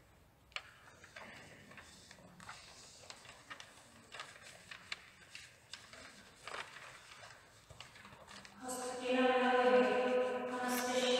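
A hushed church with scattered soft clicks and knocks, then about nine seconds in voices start singing a slow chant with long held notes.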